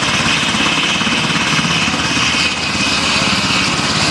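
Black Hawk helicopter running on the ground with rotors turning: a steady, fast, even rotor chop under a high turbine whine.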